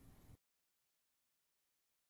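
Near silence: a faint room hiss for the first half second, then the sound cuts out to dead silence.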